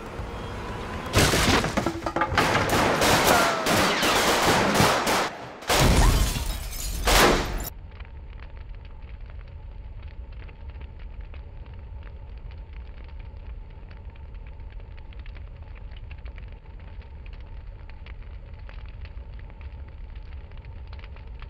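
Rapid pistol gunfire from a staged film shootout: dense shots for about four seconds, a brief break, then another volley that cuts off abruptly about seven and a half seconds in. After that comes only a low steady hiss with faint crackle.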